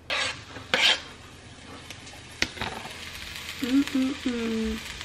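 Diced tomatoes and jalapeño pepper going into hot oil in a nonstick frying pan: two loud spits of sizzle in the first second, then a steady frying sizzle. A short knock of pan or utensil comes about two and a half seconds in.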